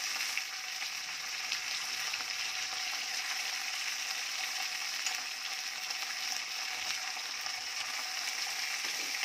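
Hot oil sizzling steadily in a kadai as freshly added coriander leaves fry with the spices, with faint ticks and scrapes of a metal spoon stirring.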